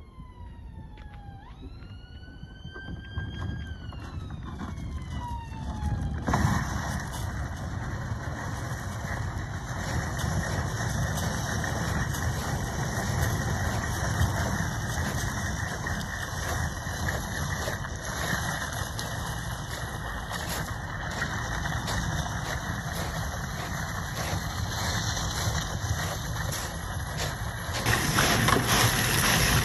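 An emergency-vehicle siren wails for the first few seconds, its pitch sliding down and back up. From about six seconds in, a steady rough crunching noise follows: the kayak trolley's wheels rolling over shingle as the kayak is pulled along.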